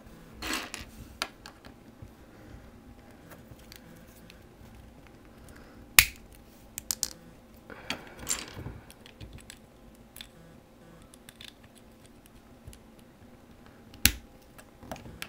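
Hard plastic Bionicle/LEGO Technic pieces clicking and clattering as they are handled and fitted together, with two sharp snaps, about six seconds in and near the end.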